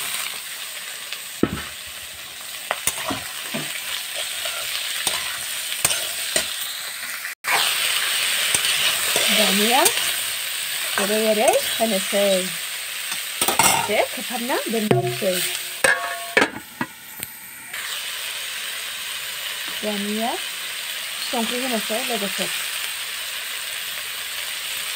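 Cauliflower florets sizzling as they fry in oil in a kadai, with a spatula stirring them and scraping and clicking against the pan.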